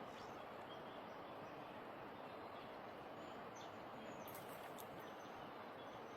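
Faint, steady rush of stream water with occasional small bird chirps, and a short run of sharp clicks about four seconds in.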